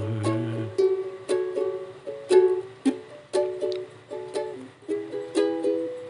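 A ukulele playing a short instrumental melody of plucked notes. A held sung note ends in the first second.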